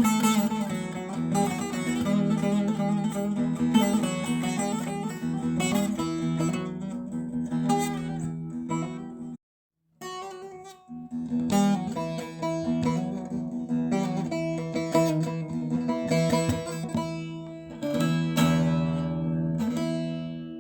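Instrumental music with plucked strings over a steady low note, cutting out briefly about halfway through.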